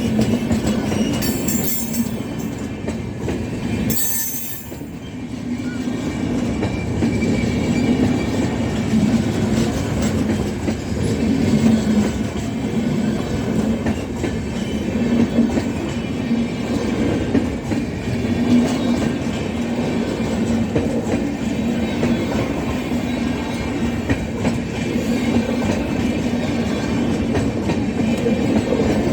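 Passenger train running along the track: a steady rumble of wheels on rails, with two brief high-pitched noises in the first few seconds.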